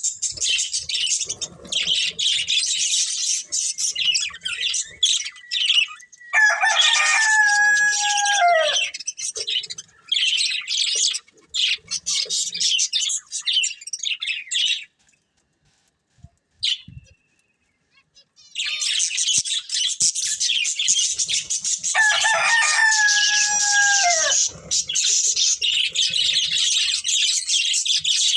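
Budgerigars chirping and chattering rapidly, with a pause of about three seconds past the middle broken by a single chirp. Twice, about a third of the way in and again near the end, a longer, lower call falls step by step in pitch over about two seconds.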